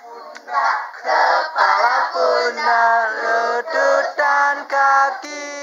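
Group singing of a children's action song in unison: short rhythmic sung phrases, then one long held note near the end.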